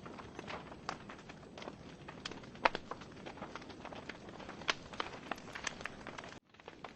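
Wood fire burning in a fireplace: logs crackling with irregular snaps and pops over a soft hiss, one sharp pop standing out a little before the middle. The sound cuts out for an instant near the end.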